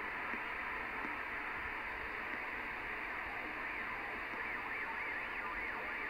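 Midland 79-893 CB radio receiving channel 38 on lower sideband. Its speaker gives a steady hiss of static with a faint, high whine that wobbles up and down in pitch, clearest near the end.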